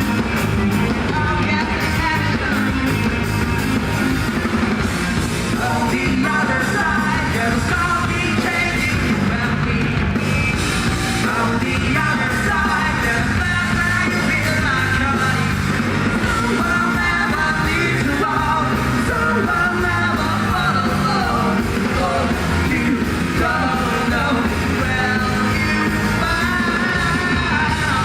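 Live rock band playing loudly with a singer over drums, bass and guitars, recorded from the audience.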